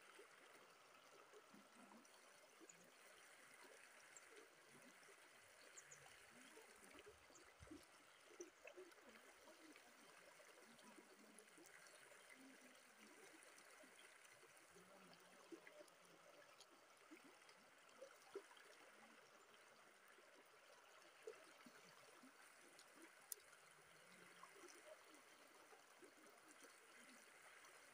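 Faint, steady rush of shallow river water flowing over rocks, with a few soft clicks scattered through it.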